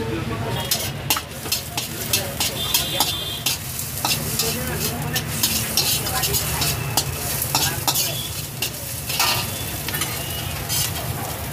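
Chopped onion and chicken sizzling in a hot wok, stirred with a slotted metal turner that scrapes and clanks irregularly against the wok. A steady low rumble runs underneath.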